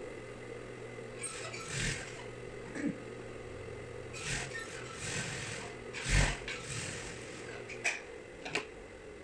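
Single-needle industrial sewing machine running as a side seam is stitched: a steady hum with a few short knocks from handling the fabric and machine, the loudest about six seconds in. The hum stops near the end.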